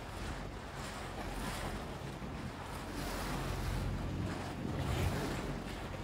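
Boat under way: a low steady engine hum under the rush of water along the hull, with wind buffeting the microphone.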